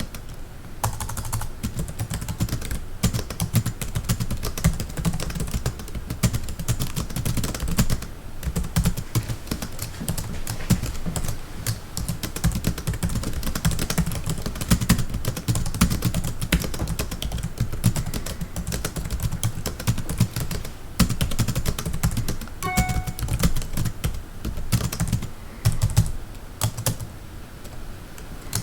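Fast typing on a computer keyboard heard close up: a rapid, continuous clatter of keystrokes, broken by a few short pauses.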